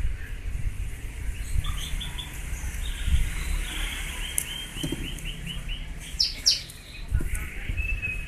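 A bird chirping in a rapid run of short notes, followed by a couple of sharp high calls. Underneath, a low rumble and a few light knocks from small reel parts being handled and screwed together.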